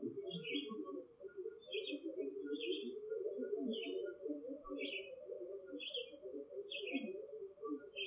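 A bird repeating a short, high chirp about once a second, over a dense, unbroken run of low hooting, cooing notes.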